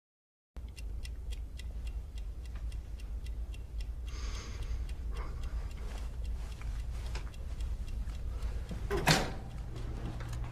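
Wall clock ticking regularly over a low steady room hum in a quiet office. There is a short rustle about four seconds in and a sharper, louder knock about nine seconds in.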